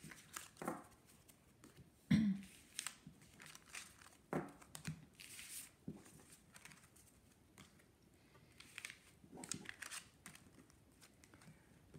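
Tarot cards being gathered up off a cloth-covered table and stacked by hand: cards sliding against each other and across the cloth, with soft rustles and scattered taps.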